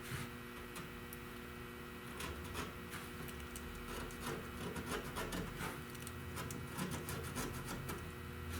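Faint scraping, rubbing and scattered light clicks over a steady electrical hum.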